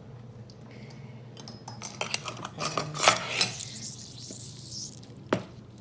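Utensils clinking and clattering against dishes while lemon juice is measured by the tablespoon: a run of quick clinks about two seconds in and one sharp click near the end.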